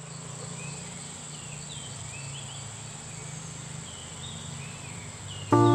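Nature ambience: a steady high-pitched insect drone, with short chirping calls repeating every second or so over a low hum. Loud music comes in right at the end.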